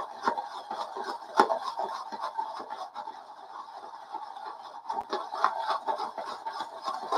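Synthetic shaving brush whipping soft soap into lather in a bowl: quick, irregular wet swishing and scratching of the bristles against the bowl. The lather is still thin, not thickening up, from too little soap.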